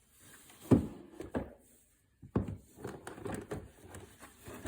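Sofa frame pieces and their brackets knocking and thudding as they are handled and fitted together: three sharp knocks in the first two and a half seconds, then softer irregular clatter.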